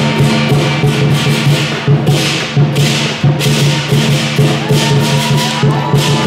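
Lion dance percussion: a large drum beating under repeated clashing cymbals in a steady, driving rhythm.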